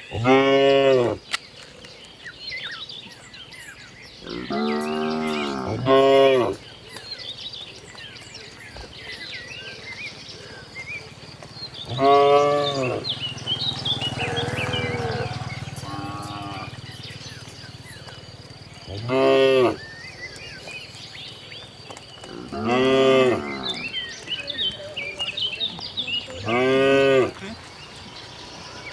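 A herd of cattle mooing, one call after another: about nine moos, each lasting a second or so, some loud and some quieter.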